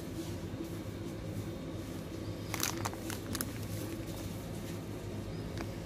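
Cellophane packaging crinkling in a short burst of crackles about two and a half seconds in as a wrapped package is handled, with one more crackle near the end, over a steady low background hum.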